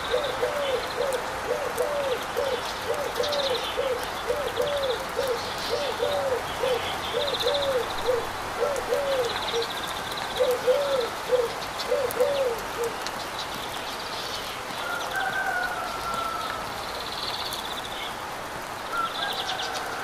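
Waterfall and river rapids with a steady rush of water, and birds calling over it. One bird repeats a low hooting note about twice a second and stops about thirteen seconds in. Others give higher chirps and quick trills, and a few faint whistles come later.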